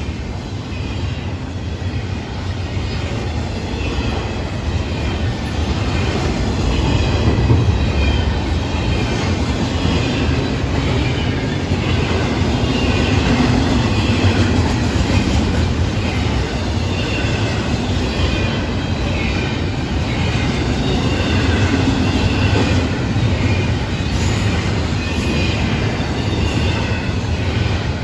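Florida East Coast Railway intermodal freight train rolling past: a steady rumble of wheels on rail with clacking and a wavering high wheel squeal, growing louder about six seconds in.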